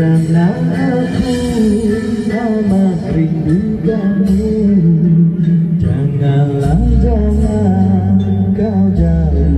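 A song sung live into a microphone over backing music through a PA system: a sustained, gliding vocal melody over a steady bass line.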